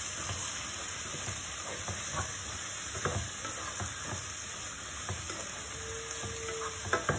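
Onions and tomatoes frying in a pot with a steady sizzle while a wooden spatula stirs them, knocking against the pan about once a second, with two louder knocks near the end.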